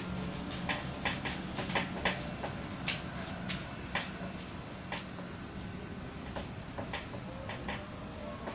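Irregular light clicks and taps from paper sheets and the cutting die being handled and lined up on a manual rolling die-cutting machine, over a low steady hum.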